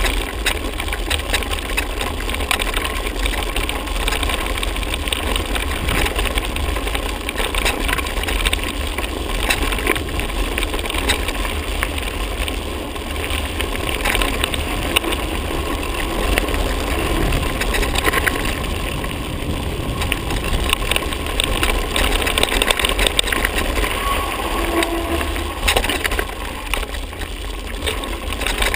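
Mountain bike rolling over a rough gravel and dirt track: continuous crunch of tyres on loose stones with dense small rattles and ticks from the bike, over a steady low rumble.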